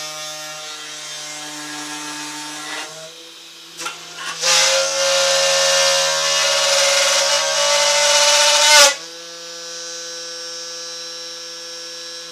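Drilling machine running with a steady motor hum. About four and a half seconds in, the bit bores a fastener hole, a loud cutting noise lasting about four seconds that stops abruptly, and the motor runs on.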